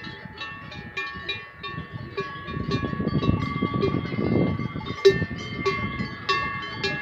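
Cowbells on a grazing herd of cattle clanking and ringing together, many overlapping tones struck at irregular intervals. A low rushing noise swells up under them in the middle.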